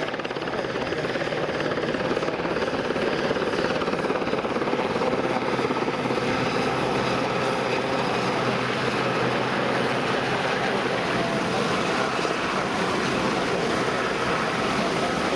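Westland Sea King search-and-rescue helicopter hovering low, its main rotor and twin turboshaft engines running steadily, getting a little louder in the first couple of seconds as it comes closer.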